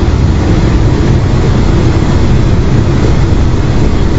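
MetroRail Class 10M5 electric multiple unit train running on the line, a loud, steady low rumble.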